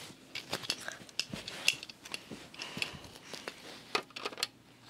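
Plastic LEGO pieces being handled: a string of small, irregular clicks and taps.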